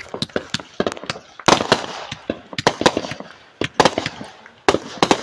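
Consumer aerial fireworks going off: a rapid, irregular run of sharp bangs and pops that comes in several quick clusters.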